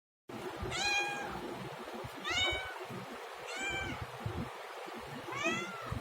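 Domestic cat meowing four times, each meow about half a second long and spaced roughly a second and a half apart; the last meow rises and then falls in pitch.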